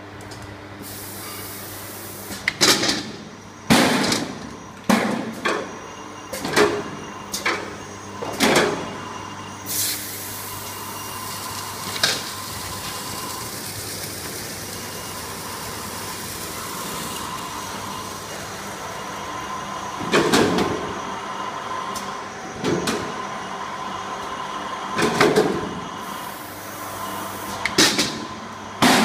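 High-speed automatic stretch film rewinder running with a steady mechanical hum and a steady whine. About a dozen sharp knocks come at irregular spacing over the hum, most of them in the first third and again near the end, and a high hiss runs through roughly the first third.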